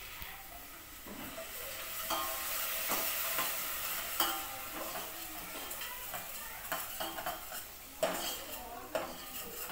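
Steel ladle stirring a pot of curry on a gas stove, scraping and knocking against the stainless-steel pot now and then, over a steady sizzle of cooking.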